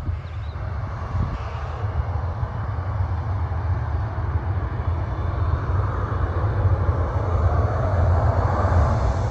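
Boeing 737 jet engines running on the runway, growing steadily louder, with wind buffeting the microphone.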